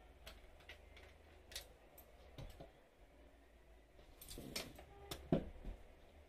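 Handling sounds of a camera sling strap: scattered clicks and light rattles of its metal connector and nylon webbing against a tabletop, busier a little after four seconds in, with one louder knock just after five seconds.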